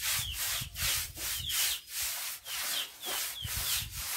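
Broom scrubbing a wet pen floor, back-and-forth strokes about three a second, each a scratchy hiss.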